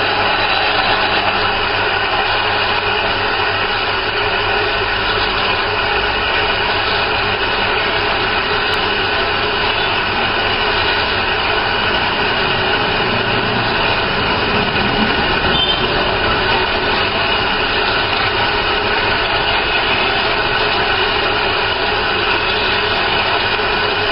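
Vertical rotary welding positioner's geared drive running steadily as the table turns slowly, one full revolution taking about 30 seconds. It is a continuous mechanical hum with several steady tones and no breaks.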